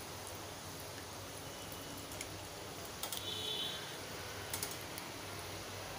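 Hot oil sizzling steadily in a kadhai as dough pieces deep-fry, with a few light crackles and ticks.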